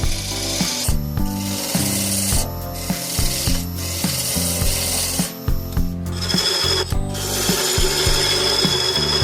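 Machine cutting wood: a rough rasping and grinding of wood, over low hum-like tones that shift every half second or so, with a few sharp knocks.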